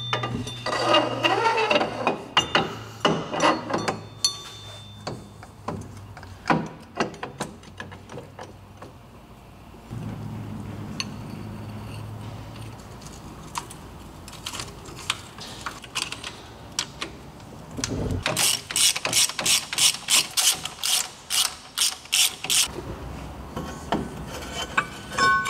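Ratchet wrench clicking as nuts are run on at the rear axle hub behind a drum brake. Scattered clicks and metal clinks come first, then a fast, even run of ratchet clicks for several seconds near the end.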